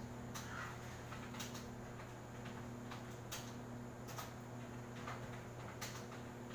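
Faint room tone: a steady low electrical hum with a handful of short, sharp clicks at irregular intervals.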